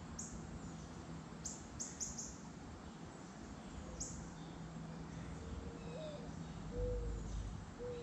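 Wild birds calling: sharp, high, downward-slurred chip notes, a quick run of them in the first two and a half seconds and one more at about four seconds, then a few soft, short low notes in the second half.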